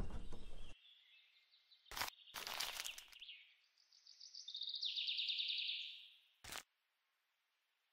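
Tiny plastic miniature toy pieces handled at a toy fridge: a rustle at the start, a click about two seconds in followed by a short crinkling rustle, and another click near the end. In the middle comes a high chirping trill lasting about two seconds.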